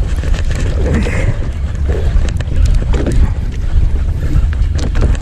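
Steady low rumble and wind buffeting the microphone aboard a small fishing boat at sea, with scattered knocks and clicks.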